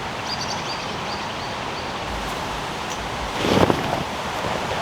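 Steady rush of a waterfall and stream, with wind on the microphone; a brief louder swell of noise about three and a half seconds in.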